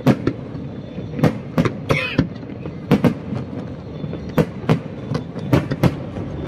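Aerial firework shells bursting in quick, irregular succession: about a dozen sharp bangs, some coming in close pairs, over a continuous rumble of the display.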